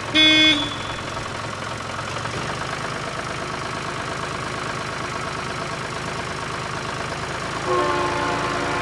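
A short pitched beep like a vehicle horn just after the start, then a vehicle engine idling steadily; near the end it gets louder and a higher engine tone comes in.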